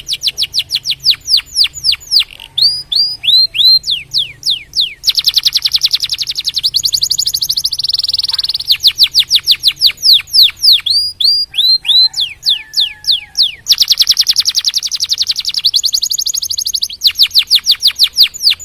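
Domestic canary singing loudly and continuously: rapid trills of repeated falling notes, broken into phrases of different speed every second or two, some fast buzzing rolls and some slower runs of distinct notes.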